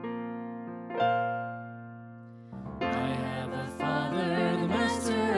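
Kawai digital piano playing held chords as a song intro. About three seconds in, singers come in with the first line of a gospel song over the piano.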